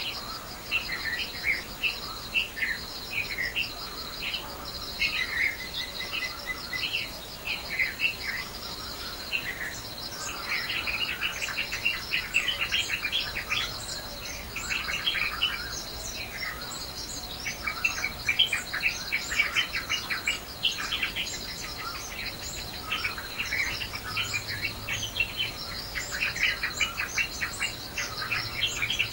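Many birds chirping and calling at once, short rapid chirps overlapping throughout, over a steady high insect trill.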